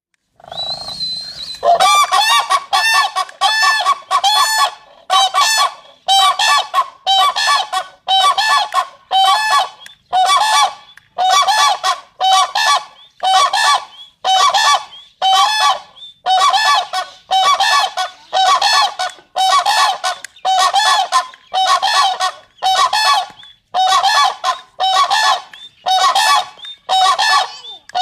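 Crane calling loudly over and over, about one call a second, each call a harsh pitched note that rises and falls.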